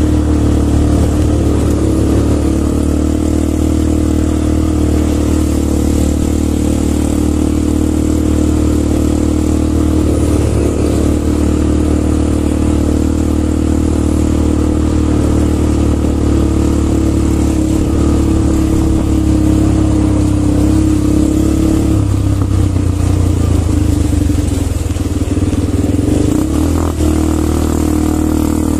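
ATV (quad bike) engines running at a steady, unchanging pitch while riding, with a slight shift in the engine sound about three-quarters of the way through.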